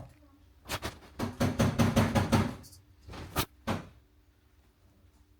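A quick run of sharp knocks and clacks starting about a second in, then two or three more single knocks a little later, like hard objects being handled.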